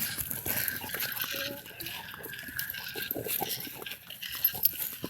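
A dog panting, over irregular light clicks and scuffs.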